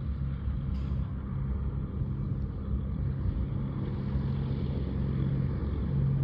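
Steady low drone of an aircraft's engines as it taxis.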